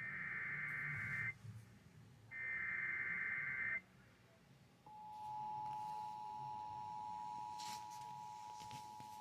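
Emergency Alert System SAME header on NOAA Weather Radio: two shrill bursts of digital data tones, each about a second and a half long. About five seconds in, the steady warning alert tone begins and holds, with a brief crackle of static near the end.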